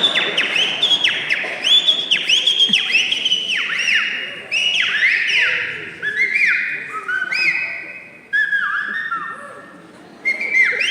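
Virtuosic whistling: a fast run of short, clear whistled notes, each rising and then falling in pitch, several a second. The run thins out and fades near the end, then starts up again.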